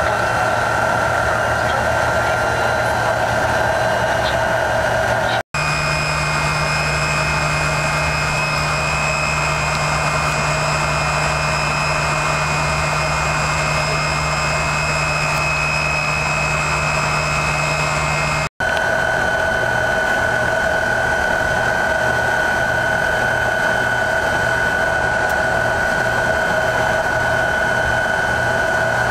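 Tupolev Tu-134A-3's rear-mounted Soloviev D-30 turbofans running at low power during taxi, heard inside the cabin: a steady high whine over a low hum. The sound cuts off abruptly twice, about five and eighteen seconds in, and comes back each time with the whine at a different pitch.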